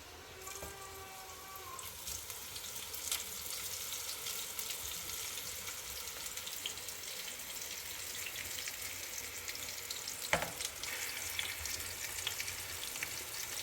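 A steady sizzling hiss with many fine crackles and an occasional sharper click, starting about half a second in.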